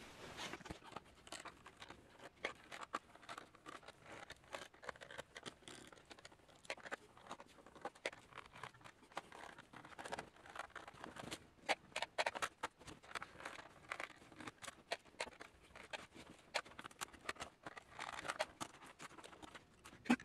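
Quick, irregular small clicks and rattles of a screwdriver working screws out of a plastic laptop case, with the clicks of panels and the keyboard being pried loose.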